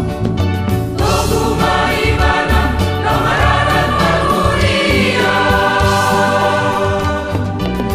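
Church choir singing a Batak wedding choral piece in parts, holding sustained chords that change every second or two over a pulsing bass accompaniment.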